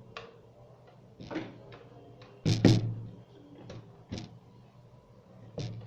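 Handling knocks and clicks as a power adapter's DC plug is fitted into the DC power socket of a Hikvision DVR: scattered taps, with a louder double knock about two and a half seconds in.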